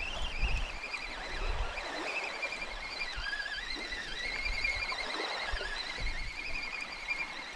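Shimano Ultegra Advance 2500S spinning reel being cranked against a hooked perch: a wavering gear whine whose pitch dips and rises with the cranking speed. There is some low rumbling in the first couple of seconds.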